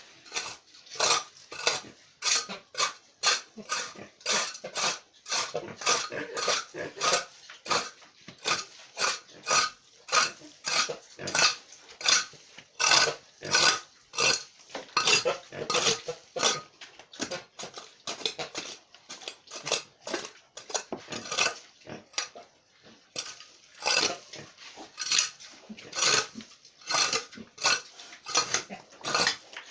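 A metal hand tool repeatedly striking and scraping a hard floor in a steady rhythm of about two strokes a second, with a short pause a little past the middle.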